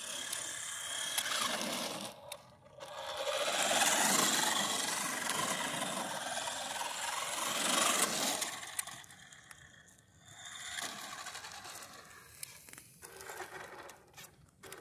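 Hot Wheels 1:10 RC Cybertruck driving over rough asphalt: its small electric motor and gears whir and its tyres scrape on the road surface. The noise is loudest as the truck passes close about eight seconds in, then fades as it slows and stops.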